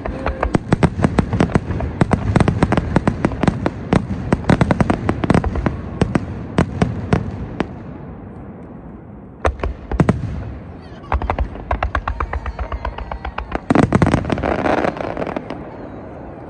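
Fireworks display: rapid volleys of bangs and crackling from aerial shells. They thin out after about seven seconds, with a few separate bangs and more crackling. Near the end comes a dense, loud volley.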